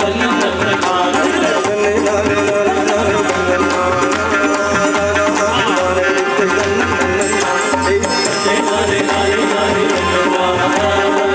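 Kerala Kuthiyottam dance music: drums keeping a steady beat under a sustained melody, continuing without a break.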